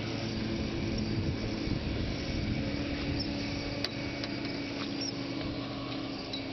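A steady engine hum with a low drone that holds one pitch, and a single sharp click a little past the middle.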